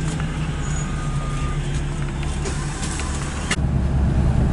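Steady low rumble of a car driving, engine and road noise, with a few light clicks; a sharp click about three and a half seconds in, after which the rumble grows louder.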